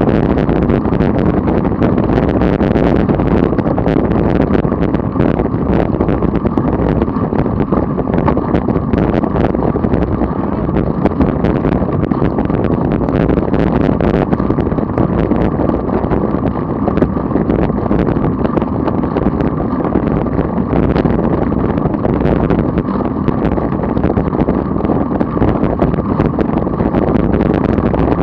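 Loud, steady wind noise on a bike-mounted camera's microphone while riding a road bike at about 25 mph, with faint scattered clicks from buffeting.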